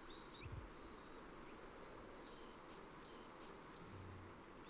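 Faint natural ambience: small birds giving several short high chirps and thin whistles, one note drawn out for most of a second, over a soft steady hiss, with a brief low hum near the end.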